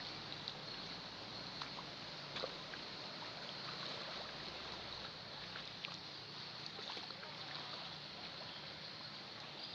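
Steady hiss of moving floodwater across a flooded street, with scattered faint ticks.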